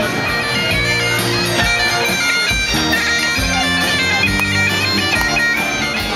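Bagpipe music, a melody of held notes played over a steady accompaniment.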